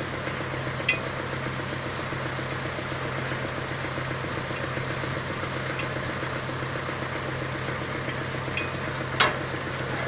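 Truck-mounted borehole drilling rig running steadily under a constant hiss and spatter from the borehole being flushed. A sharp metallic clank comes about a second in, and a louder one near the end.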